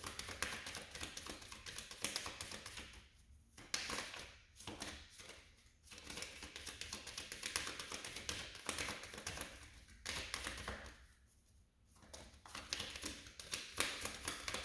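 Reading cards being handled and shuffled on a table: runs of quick light clicks and taps, with two short pauses.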